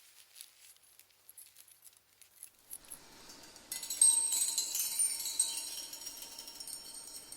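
Metal chain rattling, processed with heavy reverb: faint small clinks at first, then about four seconds in a louder jangle of links with ringing metallic tones that die away slowly.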